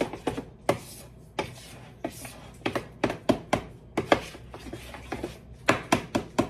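Metal serving spoon knocking and scraping against a mixing bowl while scooping banana fritter batter: a string of sharp, irregular clicks, several close together at times.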